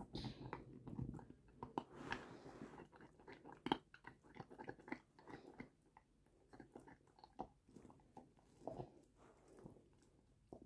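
Bernese Mountain dog gnawing on a bone: faint, irregular crunching and clicking of teeth on bone, busiest in the first couple of seconds.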